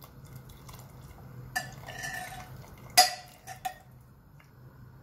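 Hot tea water pouring through a metal mesh strainer into a pressure cooker, with the strainer clinking and ringing against the pot, the sharpest clink about three seconds in and a few lighter taps after it.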